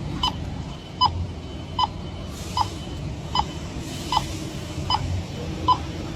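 Electronic refrigerant leak detector beeping slowly and evenly, about one short beep every 0.8 seconds. The steady, unchanged rate means it is picking up no refrigerant around the air conditioner's compressor.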